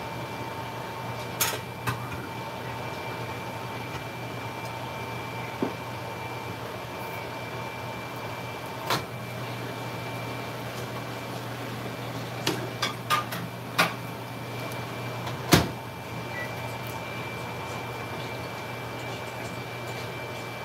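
Omelette frying in a nonstick pan: a faint steady sizzle under a constant appliance hum with two faint steady tones. A few sharp clicks and taps break through, several in quick succession about 12 to 14 seconds in and the loudest about 15 seconds in.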